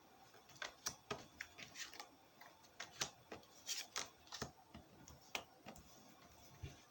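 Cigano fortune-telling cards being handled and laid on a table: a series of faint, irregular clicks and light taps.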